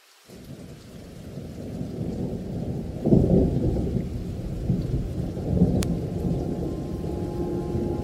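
Thunder rumbling with rain, coming in out of silence, building, and loudest about three seconds in. A held low musical tone enters near the end.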